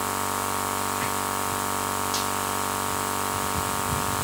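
Steady hiss with a buzzing electrical hum, the background noise of a sound system, with a couple of faint clicks.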